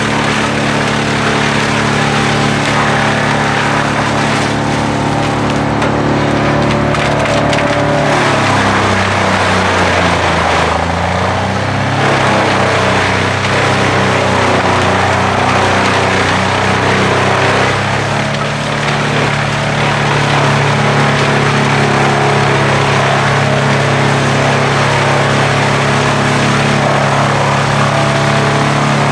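Large tractor-mounted wood chipper chipping branches and small trunks, with a steady engine drone under dense cracking and splintering of wood. About a third of the way in, the engine note sags for several seconds as the machine takes in a load of wood, then climbs back to full speed.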